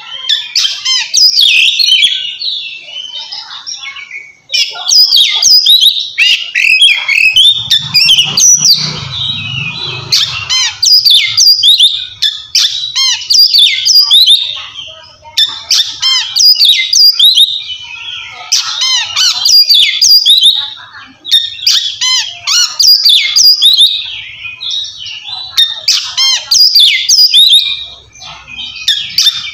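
Oriental magpie-robin (kacer) singing loud 'ngeplong' song: bursts of rapid, varied whistled phrases with short pauses between them. This is the loud challenge song a male uses to call out a rival.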